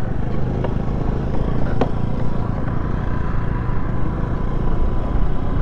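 Honda Grazia 125 scooter's single-cylinder engine running as it rides slowly over bumpy grass, with a dense, steady low rumble and one sharp click about two seconds in.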